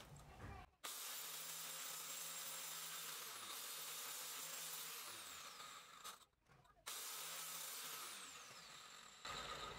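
Angle grinder on a homemade cutting slider cutting through thick metal plate: a steady grinding hiss under a very high whine that drops in pitch a few times. The sound cuts out briefly about six seconds in.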